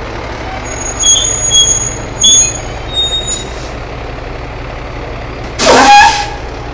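Fire truck's diesel engine idling as a steady low rumble, with several short high-pitched squeals in the first half and a loud burst of compressed-air hiss from the air brakes near the end.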